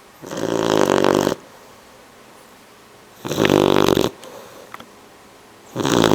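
Bloodhound puppy snoring in its sleep: three loud snores about two and a half seconds apart, each lasting about a second, the third starting near the end.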